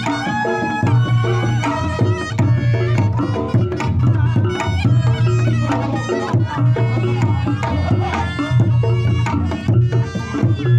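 Reog Ponorogo ensemble playing: a wavering slompret melody over kendang drumming, with repeating low tones under a steady beat.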